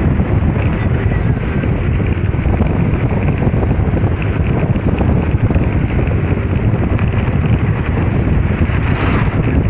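Wind buffeting the microphone over the steady rumble of a vehicle driving along a road.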